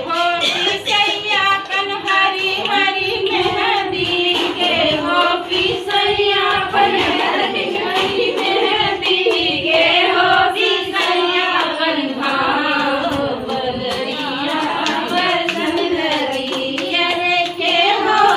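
Women singing a Hindi village folk song (dehati geet) to the dance, with rhythmic hand-clapping keeping the beat.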